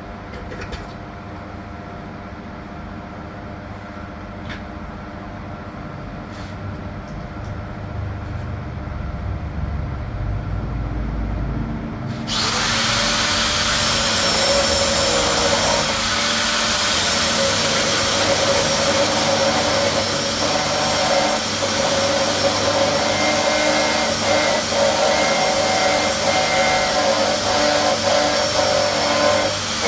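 A low hum slowly grows louder. About twelve seconds in, a power tool's motor starts with a rising whine and then runs steadily at speed.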